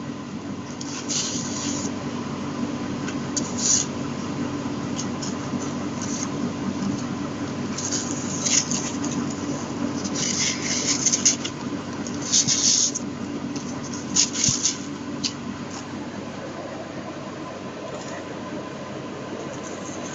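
Paper and card stock rustling and scraping in short bursts as the flaps and tags of a handmade exploding box card are handled, over a steady background hum.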